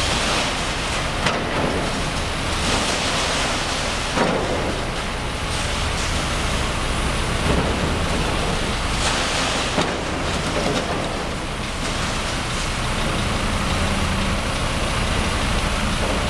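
Demolition excavator's diesel engine running steadily while its grab tears into a brick wall, with broken brick crunching and falling and a few sharp knocks.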